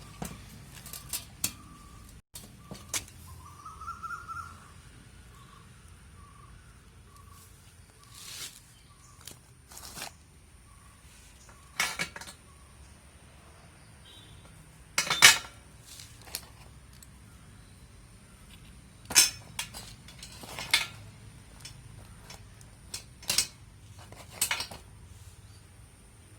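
Intermittent metallic clinks and knocks, as of tools and metal parts being handled, about a dozen spread out with the loudest about halfway through. A faint high chirp repeats two or three times a second in the first several seconds.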